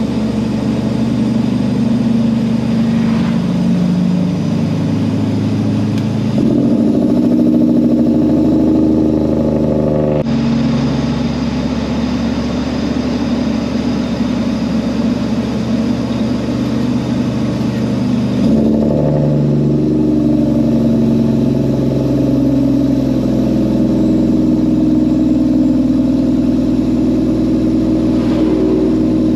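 Peterbilt semi truck's diesel engine running under way. Its note steps up about six seconds in, drops back near ten seconds and rises again near nineteen seconds.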